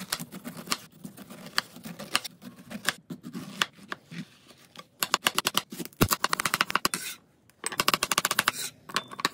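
Chef's knife cutting on a cutting board: slower cuts through a fresh pineapple, then fast runs of the blade clicking against the board while slicing radishes, with a brief pause between the runs.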